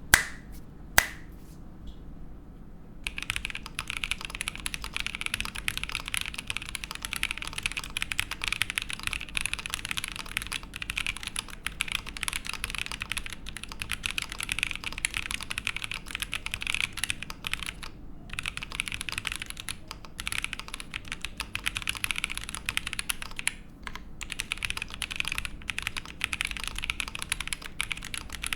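Fast, continuous typing on a Fox Lab Sand Glass Ergo mechanical keyboard with lubed Boba U4T tactile switches, an aluminium plate and GMK keycaps. It begins about three seconds in and has a couple of brief pauses. Two sharp clicks come in the first second.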